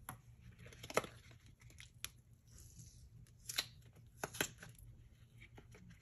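Silicone mold being bent and twisted by hand to pop out melted-crayon bears: scattered sharp clicks and ticks with a faint rubbery rustle between them, the loudest click about a second in.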